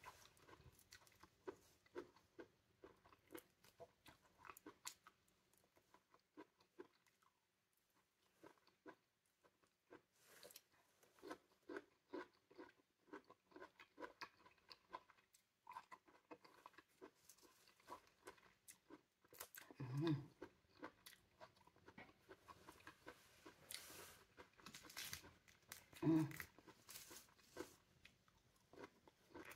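Faint sounds of a person chewing and biting pomelo pulp, a scatter of small clicks, with the segment membrane being peeled by hand. Two brief louder sounds come about two-thirds of the way in and again near the end.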